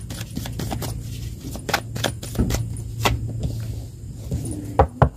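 Tarot cards being shuffled by hand and laid on a cloth-covered table: an irregular run of sharp card flicks and snaps, over a steady low hum.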